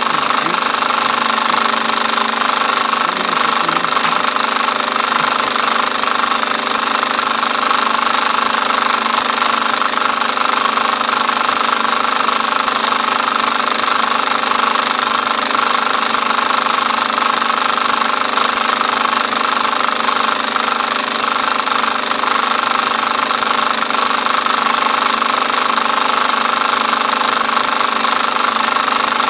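Film projector running: a steady, rapid mechanical clatter with hiss that does not change.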